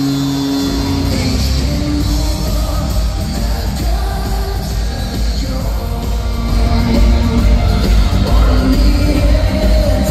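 Loud pop-rock music over an ice hockey arena's sound system, with singing and a heavy bass beat that comes in about a second in and grows louder in the second half.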